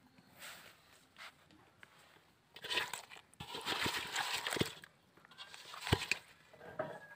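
Wet sloshing and squelching of muddy pond water in three bursts, with a sharp thump near the end, as climbing perch are stirred in the shallow mud.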